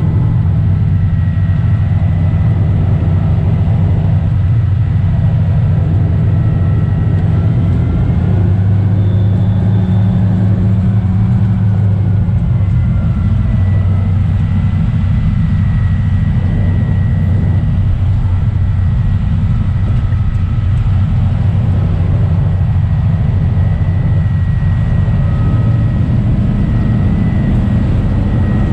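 Diesel engine of a 1943 GE 80-ton diesel-electric switcher locomotive running steadily under way, a loud low drone heard from inside the cab, with a faint steady high whine above it.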